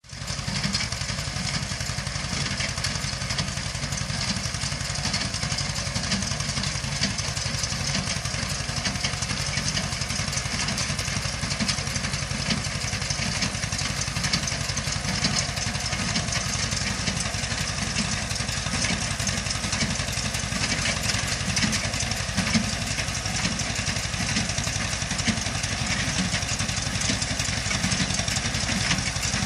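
Tractor engine running steadily while driving a hay baler, with a constant rattle of machinery over the engine hum.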